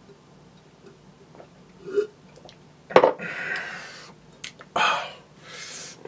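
A man's throat and breath sounds after a long drink: a short gulp about two seconds in, then several loud, breathy, burp-like exhales.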